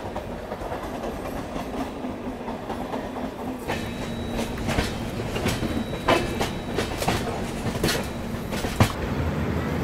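Passenger train's wheels rolling over the track under a steady rumble. From about three and a half seconds in come frequent, irregular clicks and knocks as the wheels cross rail joints and points.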